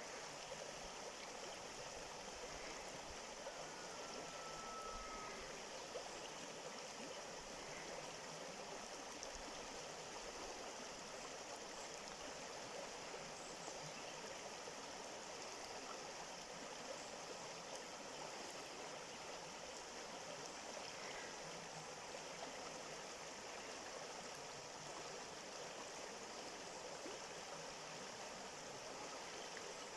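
A stream of water flowing steadily, with one brief faint whistle about four seconds in.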